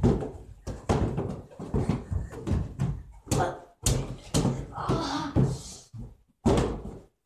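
Irregular thumps and slaps as a rubber balloon is batted about by children in a small room, with a few short voice sounds between them.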